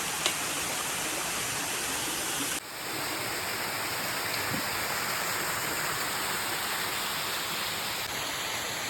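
Rushing water from a rainforest waterfall: a steady, even rush that changes abruptly about two and a half seconds in and again near eight seconds.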